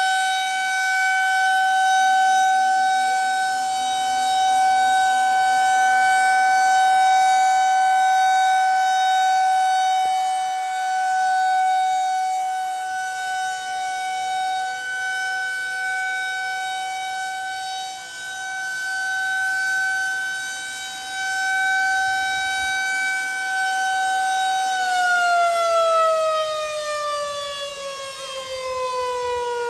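Outdoor tornado warning siren sounding one steady high tone, its loudness swelling and dipping. Near the end it winds down, the pitch sliding steadily lower.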